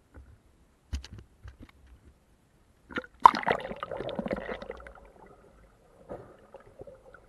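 Camera going under the sea surface: a few faint knocks, then about three seconds in a loud burst of water rushing and gurgling that fades into muffled underwater sound.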